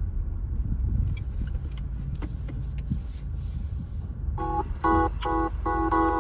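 Low rumble inside a car with a few scattered clicks, then about four seconds in a car's electronic warning chime starts, a multi-tone beep repeating several times a second.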